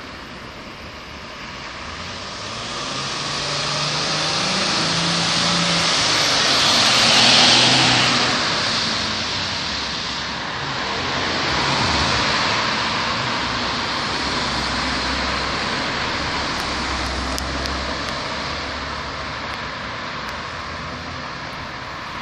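An ambulance van drives past. Its engine and tyre noise swell to a peak about seven seconds in, then fade as it moves away, and give way to the steady rush of other passing traffic.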